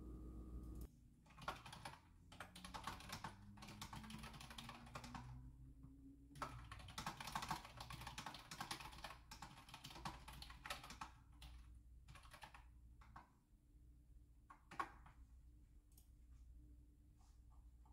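Typing on a computer keyboard: fast runs of key clicks that thin out to scattered keystrokes in the second half, with one louder key strike near the end.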